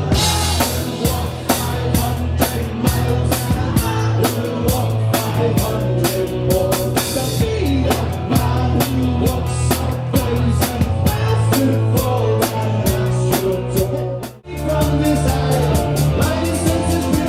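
Rock band music with a steady drum-kit beat and bass. About fourteen seconds in it cuts off abruptly and a different passage starts straight after.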